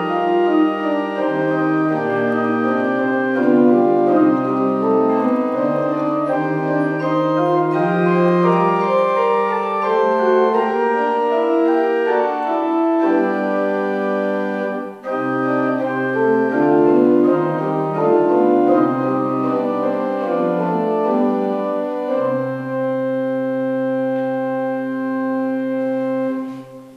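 Organ music: slow sustained chords over a moving bass line, ending on a long held chord that stops near the end.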